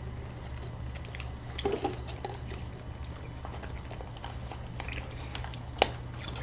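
Faint close-up eating sounds: quiet chewing and a spoon stirring and clicking in a plastic cup of soft muffin mixed into a creamy dessert, with one sharper click near the end. A steady low hum runs underneath.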